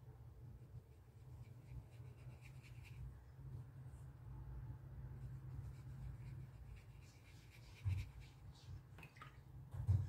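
Watercolour brush faintly scrubbing and mixing paint on a palette over a low steady hum, with two short knocks near the end.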